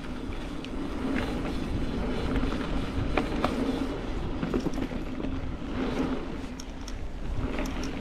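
Mountain bike rolling down a dirt trail: a steady low hum of riding noise with scattered ticks and rattles from the bike over the rough ground.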